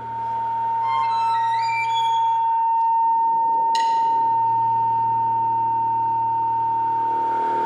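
Chamber ensemble playing contemporary art music: it swells in at the start, with a single high note held steadily throughout. Quick notes climb upward in steps about a second in, and a sharp struck attack rings out a little before halfway.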